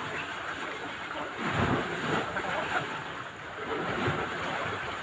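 Steady rushing noise of wind on the microphone, with a stronger low gust about one and a half seconds in.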